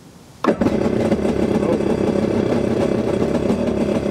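Yamaha 750 stand-up jet ski's two-stroke engine firing up at the push of the start button about half a second in, then idling steadily.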